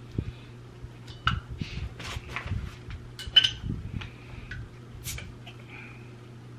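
Metal cap being worked off a glass soda bottle: a series of sharp clicks and metallic clinks, the loudest about three and a half seconds in.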